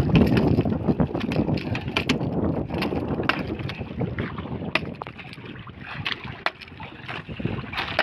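Wind buffeting the microphone and water noise around a small outrigger boat at sea, loudest in the first few seconds, with a string of sharp knocks scattered through it.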